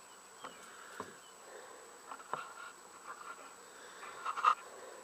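Quiet background with a faint steady high whine and a few faint scattered clicks and taps. The mower engine is not running.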